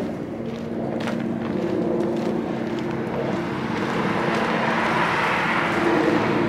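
City street traffic: a car passes on the nearby road, its tyre and engine noise swelling over the second half, over a steady low traffic hum.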